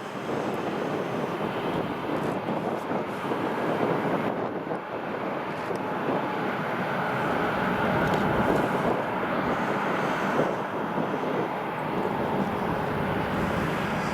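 Airbus A350 jet engines and airflow heard from inside the passenger cabin during takeoff: a steady, dense rushing roar that swells slightly midway.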